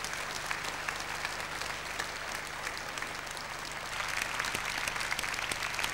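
Large audience applauding: dense, steady clapping that grows a little stronger about four seconds in, over a faint low hum.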